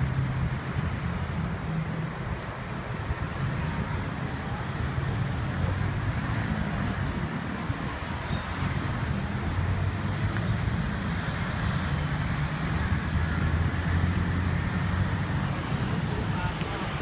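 Steady road traffic on a busy multi-lane street: passing cars and engines making a continuous low rumble, with some wind on the microphone.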